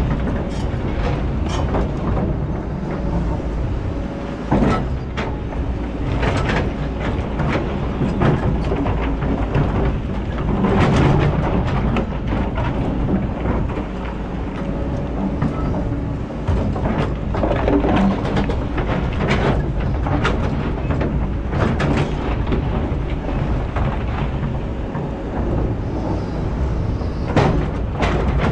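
Kobelco hydraulic excavator's diesel engine running steadily as it digs among boulders, with repeated knocks and scrapes of the steel bucket against rock and stone.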